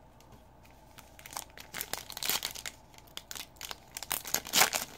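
Foil trading-card pack wrapper crinkling and being torn open by hand, with quick crackles that build to louder tearing and rustling near the end.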